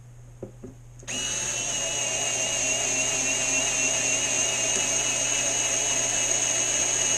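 Small cordless electric screwdriver with a hex bit, driving a strut mounting bolt into the boat's transom. After a couple of faint clicks it starts about a second in and runs as a steady motor whine, getting slightly louder as it goes.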